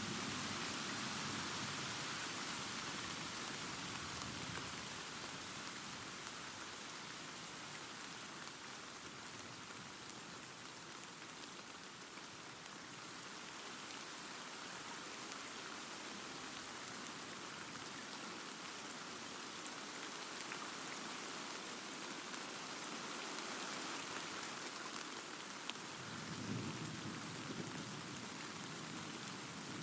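Steady rain hissing, with low thunder rumbling: a rumble fading away at the start and another swelling about 26 seconds in.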